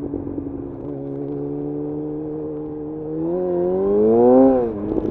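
2011 Yamaha FZ1's inline-four engine running at a steady pitch, then accelerating from about three seconds in with a rising, louder note that peaks and drops sharply near the end.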